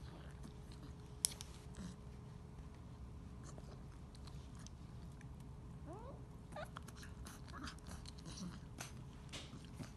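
Chow Chow puppy's mouth noises: faint, scattered wet clicks of licking and chewing, with one sharp click about a second in and a couple of short squeaky sounds a little after the middle.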